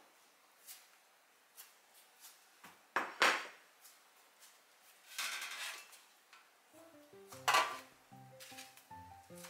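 A ceramic bowl set down on a countertop with a knock about three seconds in, then a stainless steel tray put down with a second knock; background music with a run of short notes starts shortly before the second knock.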